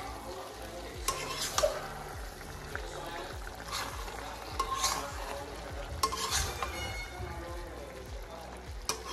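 Metal spatula stirring and scraping chicken pieces and potatoes in a kadai, with irregular scrapes over a steady sizzle of the curry frying.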